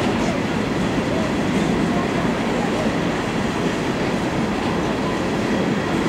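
Empty coal hopper cars of a freight train rolling past: a steady, unbroken rumble of steel wheels on the rails.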